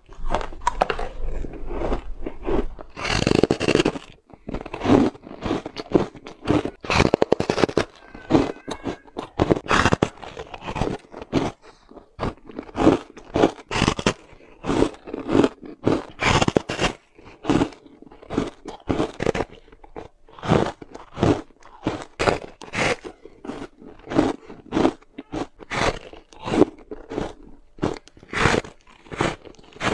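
Hard frozen matcha ice being bitten and chewed: a steady run of crunches, about two a second.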